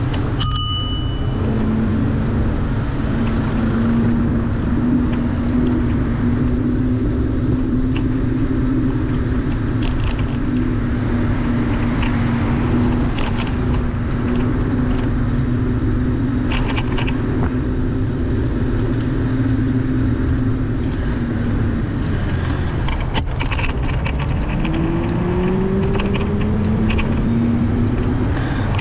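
Steady low street and traffic rumble with a steady low hum that glides up in pitch about 24 seconds in. A brief bell-like ring sounds at the very start.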